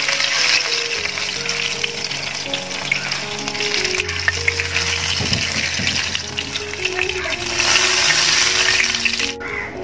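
Hot oil sizzling in a frying pan around masala-marinated tilapia pieces, with a plastic spatula scraping and lifting the fish out. The sizzle swells louder about three-quarters of the way in, then briefly drops away near the end.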